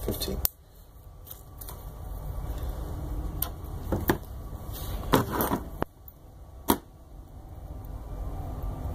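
Plastic anti-static parts bag crinkling in the hands, with a few sharp clicks from handling small electronic parts on a workbench.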